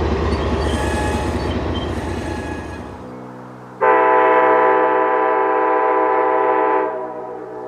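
Rumble of a passing train fading away, then a diesel locomotive's multi-chime air horn sounding one long blast of about three seconds, which stops and rings off.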